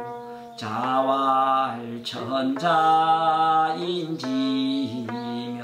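A man chanting a line of Classical Chinese in the Korean seongdok reading style: two long, drawn-out, wavering phrases, over soft steady instrumental accompaniment.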